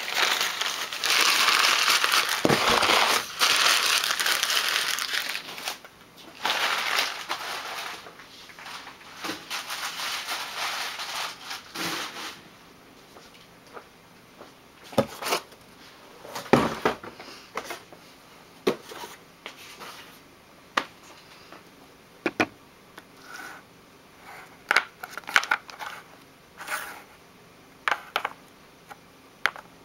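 Packing material crinkling and rustling as a shipping box of supplies is unpacked, loud and continuous for the first several seconds and then in patches. After that come scattered light knocks and clicks as small containers are handled.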